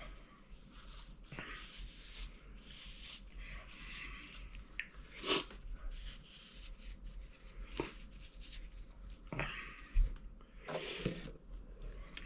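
A person breathing hard with several short, sharp sniffs and breaths, in the burn of Carolina Reaper-seasoned popcorn.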